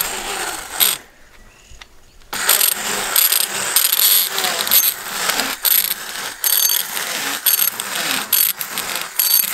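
Hand blender grinding a bucketful of eggshells, a dense crunching, clattering crackle of shell fragments against the blade and the plastic bucket. It drops away about a second in and starts again just after two seconds.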